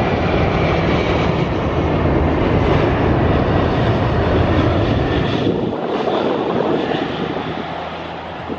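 Jet airliner's engines on landing approach: a steady loud rushing noise with a high whine that slowly falls in pitch, easing off near the end.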